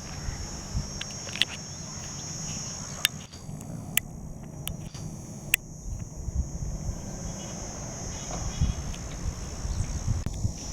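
Insects, crickets or cicadas, keeping up a steady high-pitched drone, with a few sharp clicks and a low rumble underneath.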